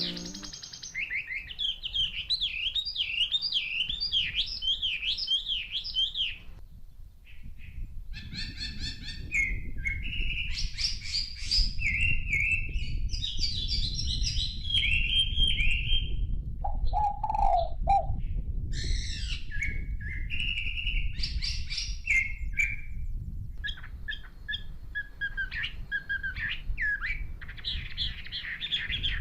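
Birds chirping in quick repeated phrases of short high notes, with brief pauses between bouts and one lower call about two-thirds of the way through. A low rumble runs beneath much of it.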